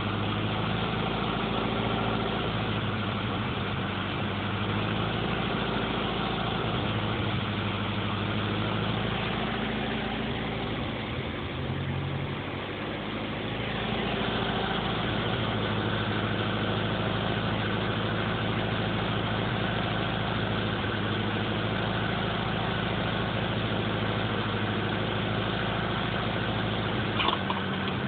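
Nissan SR20 2.0-litre four-cylinder engine idling, with the idle sagging briefly about halfway through; the owner calls it a weird idle with misfires. A short sharp click near the end.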